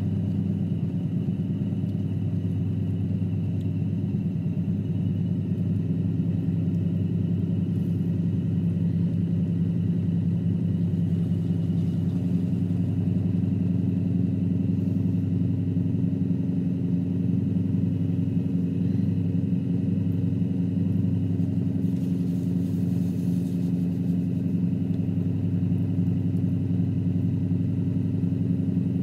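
Electric potter's wheel motor humming steadily while hard, wet clay is centred and coned up by hand on the spinning wheel head. The hum's pitch shifts slightly about twelve seconds in.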